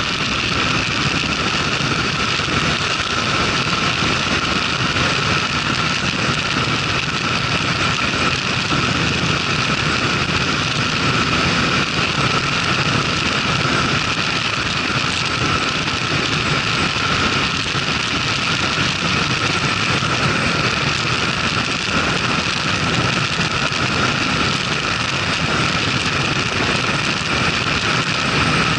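Motorcycle riding at road speed, heard from the bike itself: a steady rush of wind and engine and road noise with no breaks.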